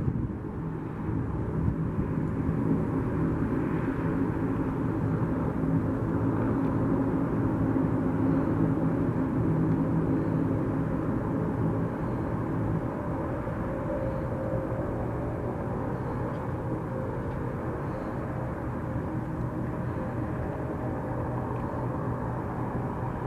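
Jet airliner engines running, a steady drone with low humming tones; a slightly higher tone joins about halfway through.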